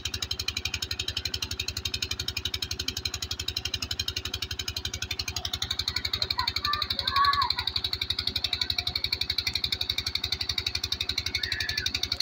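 Engine of a wheeled irrigation pump running steadily with a rapid, even chugging, over the rush of water pouring from its outlet pipe into a concrete basin.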